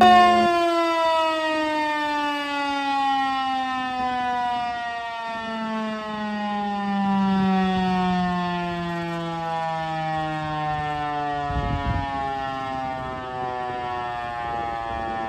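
Eclipse 8 outdoor warning siren winding down, its pitch falling slowly and steadily.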